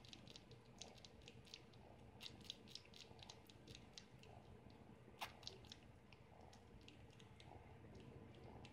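Faint wet clicks and smacks of a kitten suckling on skin, coming several a second in irregular runs, with one sharper click about five seconds in.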